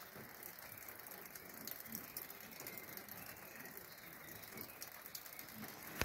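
Light rain pattering faintly on foliage, a soft steady hiss dotted with many small, quick drop ticks.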